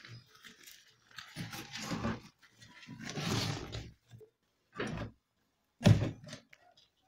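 Cobras hissing: four breathy hisses, each half a second to a second long, the last and loudest about six seconds in.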